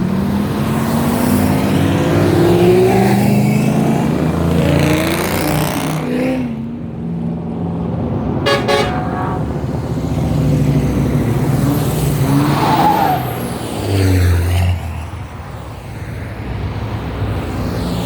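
Loud cars driving past one after another, engines revving up and easing off, with a short car horn toot about eight and a half seconds in.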